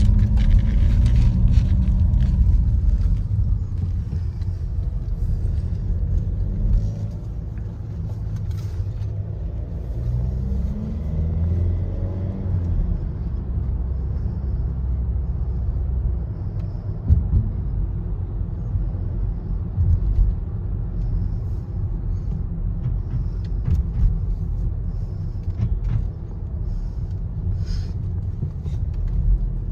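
Motor vehicle running, a steady low rumble of engine and road noise, with the engine's pitch rising briefly about a third of the way in.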